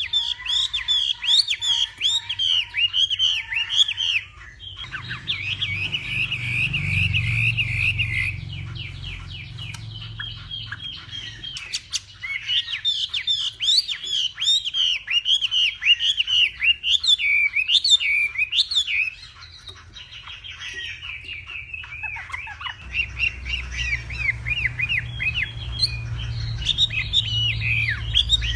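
Chinese hwamei singing a long, loud, varied song of rapid whistled phrases, changing phrase type every few seconds, with brief breaks between passages.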